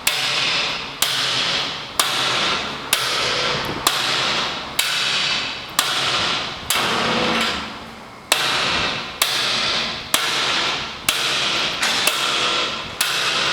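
Hand hammer striking a steel punch set against a gun safe's deadbolt through a hole drilled in the safe's side, about one blow a second, each strike ringing out through the steel body. This is an end-pressure attack on the locked deadbolt, and the deadbolt holds.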